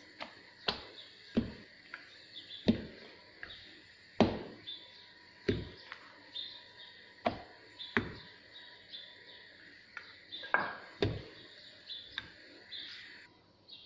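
A rolling pin rolling out puff pastry dough on a counter, with a sharp knock about every second or two as it comes down and rolls.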